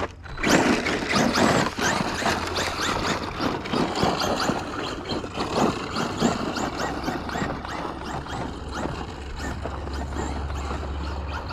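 Traxxas Slash RC truck with a 3300kv brushless motor driving over dirt and loose gravel: a dense run of crunching, crackling and knocking from the tyres and stones, busiest in the first half.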